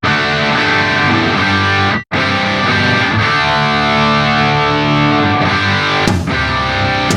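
Intro music: distorted electric guitar rock, with a brief drop-out about two seconds in.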